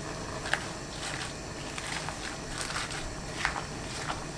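Water boiling in a pot with lettuce leaves blanching in it: steady bubbling with small pops scattered through it.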